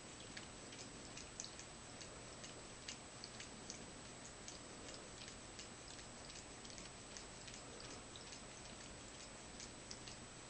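Faint, irregular small wet ticks and drips from a long-haired cat dipping her paw into water and lapping the water from her fur, several a second, over a low hiss.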